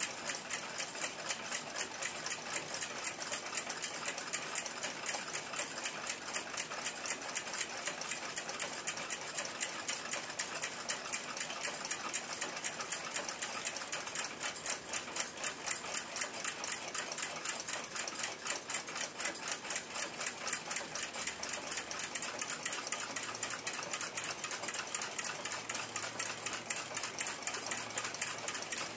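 Fast, even mechanical ticking that runs on steadily, like a running clockwork movement.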